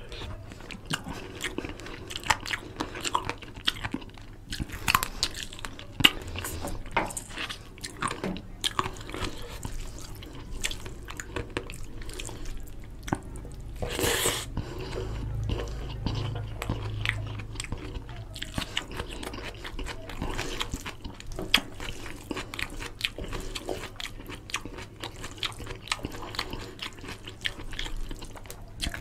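Close-up mouth sounds of eating by hand: wet chewing and lip smacking on mouthfuls of curry-soaked rice and chicken, many short clicks, with fingers squishing through the oily rice on the plate. A louder wet mouthful comes about halfway through.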